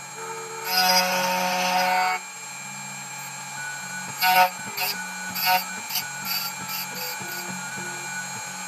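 OMX TANK T2 CNC key cutting machine milling an HU64 key blank: a steady motor hum, a loud stretch of cutting about a second in that lasts about a second and a half, then a string of short cutting bursts.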